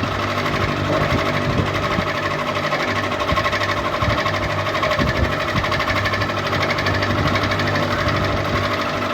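Ceiling fan running steadily: a fast, even rattle over a low hum.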